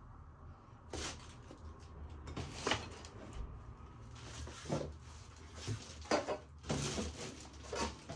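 Front-loading washing machine running a wash cycle: a steady low motor hum with irregular swishes and thuds of wet laundry and water tumbling in the drum, about eight in all.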